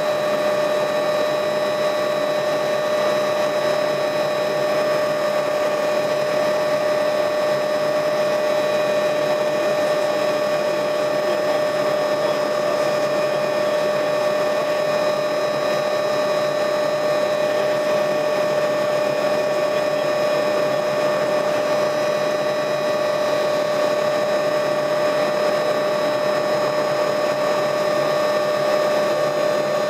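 Helicopter in flight heard from inside the cabin: a steady whine over dense, even engine and rotor noise that holds at one level throughout.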